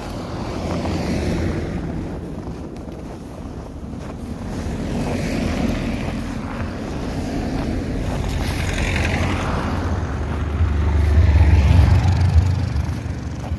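Cars driving slowly past on a snow-covered road, with wind on the microphone; a low engine and tyre rumble swells to its loudest near the end as one car passes close by.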